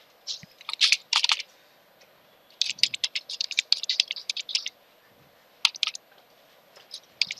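Computer keyboard typing in quick runs of keystrokes, with short pauses between the runs.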